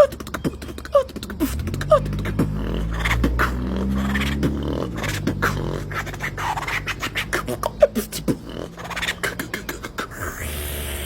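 Freestyle beatboxing: rapid vocal clicks and snare hits, with quick falling-pitch sweeps about once a second. A held low bass tone that steps in pitch comes in after about a second and a half and stops around five seconds in, then the fast percussion goes on.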